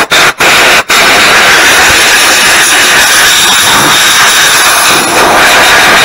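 Compressed-air blow gun blasting air over the disassembled single-spool hydraulic remote valve body to blow it clean, a loud steady hiss. The hiss cuts out twice for an instant in the first second, then is held.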